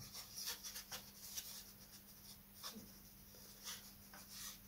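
Faint, light scratching and tapping of balsa parts being handled and pressed into place in a wooden model aircraft fuselage: a scatter of short scrapes and ticks.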